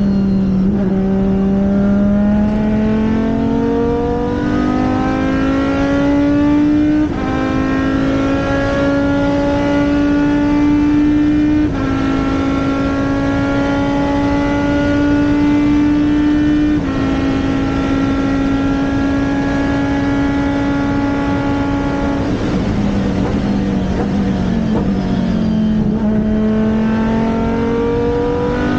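Race car engine running hard at high revs, its pitch climbing and stepping at gear changes about 7, 12 and 17 seconds in. It drops back around 22 seconds in, then climbs again near the end.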